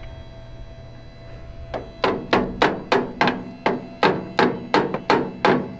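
Electric fuel pump clicking steadily, about three clicks a second, as it runs and pushes fuel toward the carburetor. The clicking starts about two seconds in.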